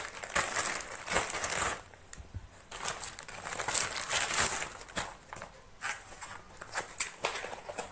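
Plastic courier mailer bag crinkling and rustling as it is cut open with scissors and pulled apart, in irregular bursts with a brief lull. There is one sharp tap near the end as a cardboard box is handled.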